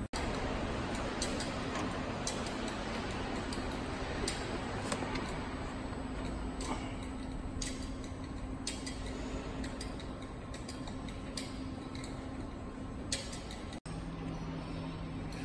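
Steady machinery hum in a packaging-machine workshop, with light regular clicks about once a second. Near the end the sound briefly cuts out and the hum returns at a lower pitch.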